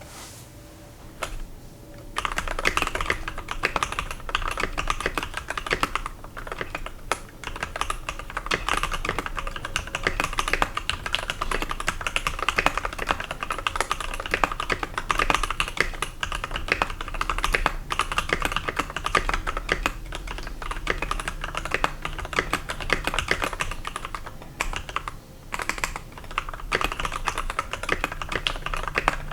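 Custom 65% mechanical keyboard being typed on: lubed Gateron Yellow linear switches under MT3 keycaps, on an aluminium plate in an acrylic case. A few scattered key presses, then steady fast typing from about two seconds in, with a brief pause late on.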